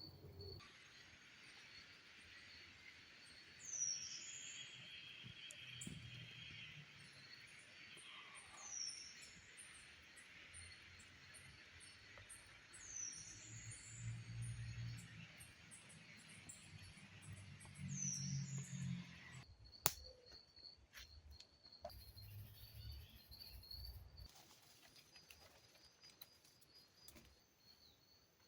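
Faint rainforest ambience: insects keep up a steady high-pitched buzz and hiss while a bird gives a short downward-slurred whistle four times, about every four to five seconds. About two-thirds of the way through the insect hiss cuts off abruptly, leaving a quieter background with a few clicks.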